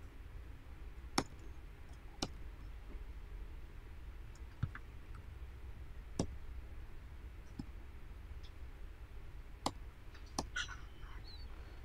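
Scattered single sharp clicks from working a computer, about seven of them, irregularly a second or more apart, over a faint low hum.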